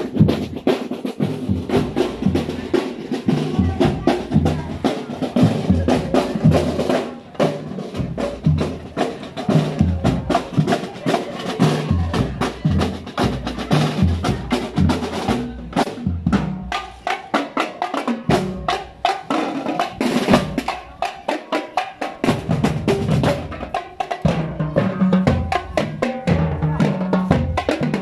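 A drum and lyre corps's drumline playing a continuous rhythmic beat: sharp snare and stick hits over low multi-tenor and bass drum strokes.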